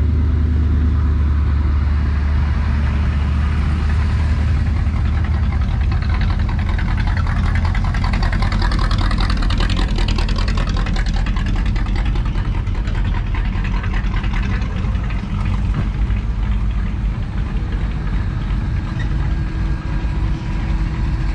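Classic car engines running at low speed. One old sedan rolls slowly past close by, loudest about halfway through, over a steady low rumble.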